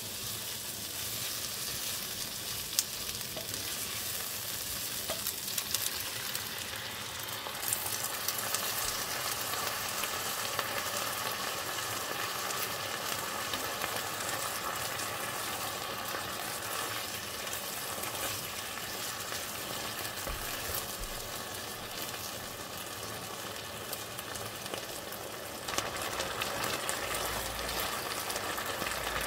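Food sizzling and frying in a hot pan, with scattered short clicks as it is stirred. The sizzle steps up louder near the end.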